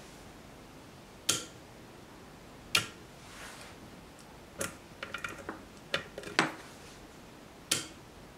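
A series of sharp mechanical clicks, about eight, irregularly spaced with a quick cluster a little past the middle: the McIntosh C28 preamp's speaker buttons being pressed and the SCR2 relay box's speaker relays switching.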